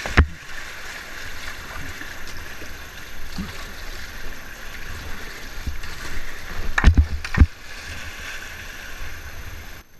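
Water rushing steadily around a whitewater kayak on a fast, shallow river, with paddle strokes. There are a few sharp knocks, one at the start and two or three close together about seven seconds in, as the boat passes over shallow stones beside a rock wall. The sound breaks off just before the end.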